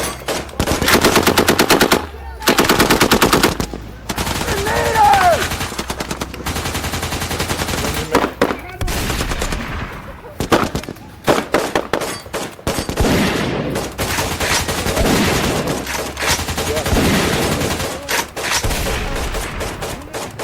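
Rapid automatic fire in two long bursts of about a second and a half each near the start, then scattered shots and shorter bursts for the rest of the time.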